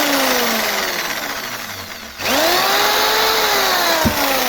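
Electric jigsaw running on a test after repair, its motor and blade drive working again. It is switched off about two seconds in and started again, the whine rising fast at each start and then slowly dropping.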